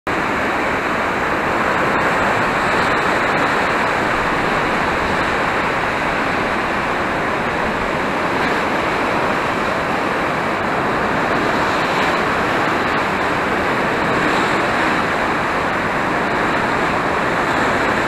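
Floodwater of a river swollen by typhoon rain, rushing and churning: a loud, steady rush of turbulent water.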